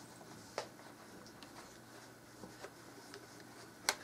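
Quiet room with a few light clicks and taps of small objects being handled, and one sharper click near the end.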